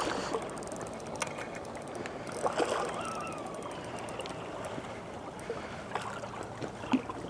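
Shallow seawater lapping and splashing against rocks at the water's edge, with a few light splashes and faint clicks.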